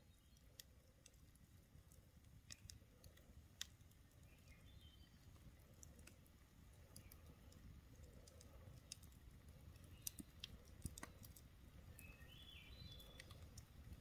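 Light rain, scattered drops tapping one at a time on a rain tarp in an irregular, faint patter.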